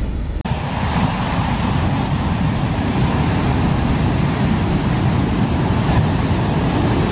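Large ocean waves breaking heavily in a shore break: a steady, deep, dense rush of surf and whitewater. About half a second in, the hiss suddenly turns brighter.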